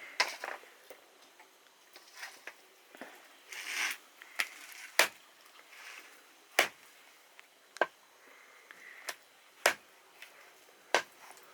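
A knife chopping on a wooden chopping block: about half a dozen sharp single chops at uneven gaps of one to two seconds, with fainter clicks and a brief rustle between.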